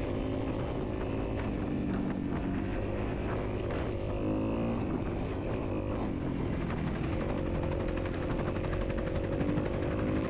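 A motor running steadily, its pitch rising and falling briefly about four seconds in, with a change in its high end about six seconds in.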